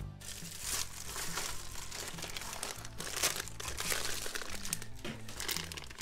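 A plastic resealable bag holding braided charging cables crinkling as it is handled, under background music with steady low notes.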